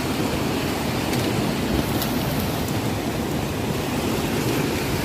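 River in flood: high, fast floodwater rushing steadily, carrying a mass of driftwood.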